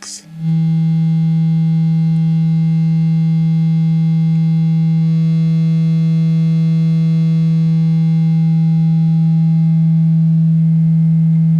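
Analog synthesizer VCO putting out a steady low triangle-wave tone that is distorted by the sawtooth-to-triangle converter, so it sounds sharp, with many more harmonics than the hollow sound of a pure triangle. The tone starts about half a second in and holds one pitch, with a slight change in the overtones about halfway through.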